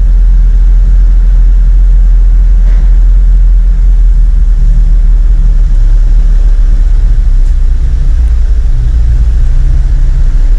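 Truck engine idling: a loud, steady low drone that holds level throughout.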